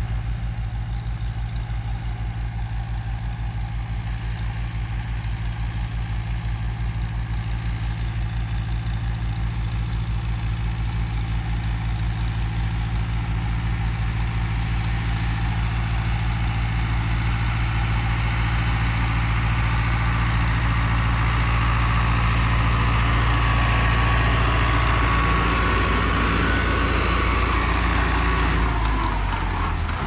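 Farm tractor engine running steadily with a low, even drone, growing a little louder through the middle and dropping in pitch near the end.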